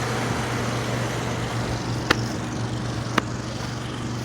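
Central air conditioner condensing units running: a steady fan rush over a low compressor hum, with two sharp clicks about two and three seconds in.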